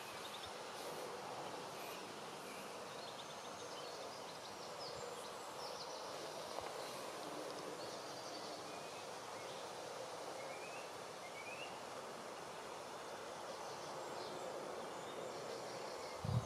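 Outdoor ambience: a steady rushing background noise with faint, scattered bird chirps. A brief low thump, like wind or handling on the microphone, comes just before the end.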